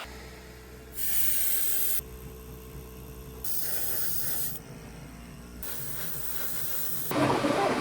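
Paint being sprayed onto a small die-cast toy car body in three separate bursts of hiss, each about a second long, with short pauses between them.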